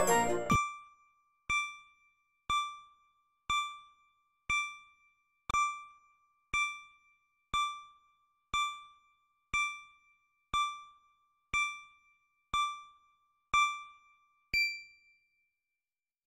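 Countdown timer beeps: a short electronic ding that rings and fades, once a second, fifteen times, the last one at zero higher-pitched and ringing longer. An intro music jingle cuts off about half a second in.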